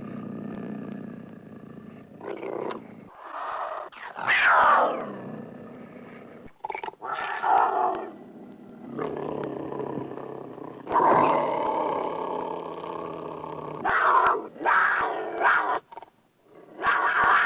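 A cougar calling again and again: long, pitched calls with short gaps between them. One call about four seconds in slides steeply down in pitch.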